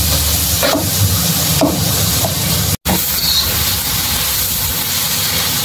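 A couple of knife strokes on a wooden chopping board while chillies are sliced, then, after a sudden cut, pork and sliced chillies stir-frying in a wok with a steady loud sizzle.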